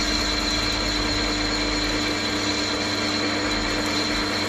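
Chester metal lathe running at about 300 RPM while a parting tool is fed steadily into the spinning workpiece: a steady motor hum with a high whine above it.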